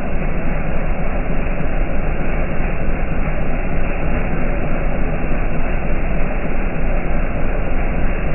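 Rain falling steadily: a loud, even hiss and rumble that does not change.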